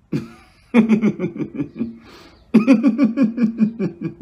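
A man laughing in two bouts of quick, evenly spaced "ha-ha-ha" pulses, with a short breath drawn between them.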